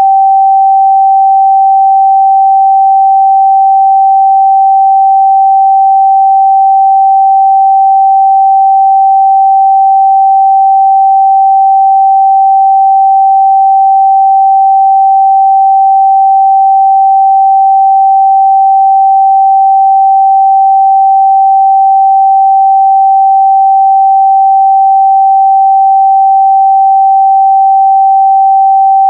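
Continuous 777 Hz sine-wave test tone, one pure steady pitch held at a constant loud level.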